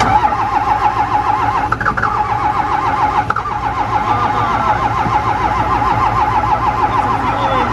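Starter cranking a cold-soaked Dodge W250's Cummins 5.9 inline-six diesel in an even, pulsing rhythm of about five strokes a second, without it catching. It is hard-starting from the cold, with thick 15W-40 oil, no block or oil-pan heater plugged in, and a leaking O-ring at the fuel filter housing.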